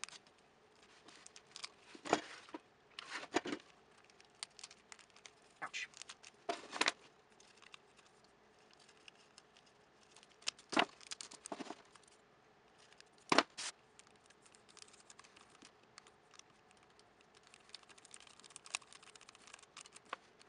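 Foil candy wrappers crinkling and rustling as ribbon-wrapped chocolate squares are handled, with several short, sharp snips of scissors trimming the ribbon ends. Near the end, a light, fast scratching of a marker on the foil.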